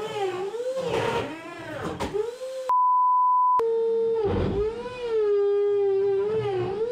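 CNC router spindle cutting with a 3/8-inch carbide end mill in a fast roughing pass, its whine dipping and rising over and over as the cutting load changes. About three seconds in, a steady one-second bleep tone replaces all other sound, then the cutting resumes.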